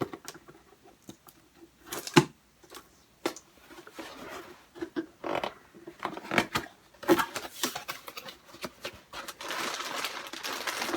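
Model rocket kit packaging being opened and handled: scattered clicks and taps of cardboard and plastic, with a longer rustling stretch near the end.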